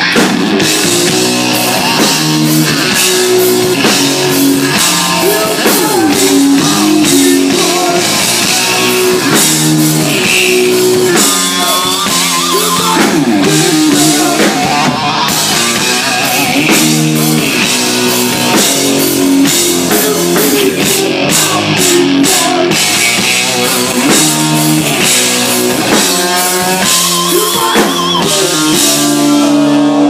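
Hard rock band playing live: electric guitar, bass guitar and a drum kit with cymbals, in a steady, loud rhythmic passage.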